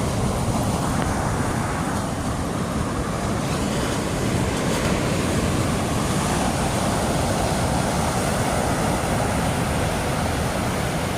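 Heavy storm surf from Hurricane Erin breaking and washing in at high tide, as a steady rushing rumble with wind on the microphone.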